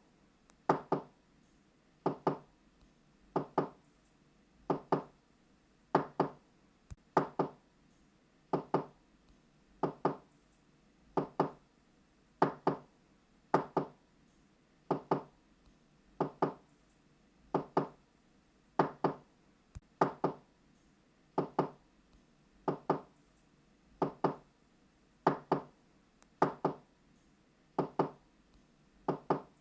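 Knocking on a door in quick pairs, knock-knock, repeated at an even pace of about one pair every 1.3 seconds, with a small-room echo.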